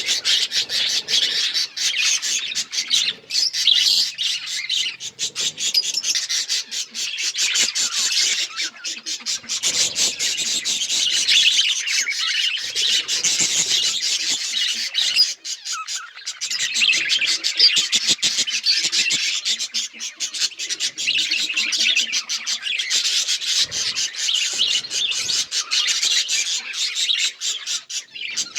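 A flock of budgerigars chirping and chattering, many high-pitched, scratchy calls overlapping without a break.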